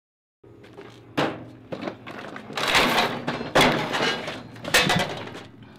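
Heavy iron chain clanking and rattling with a wooden chest knocking on a wooden table: a run of loud knocks and rattles that begins about half a second in.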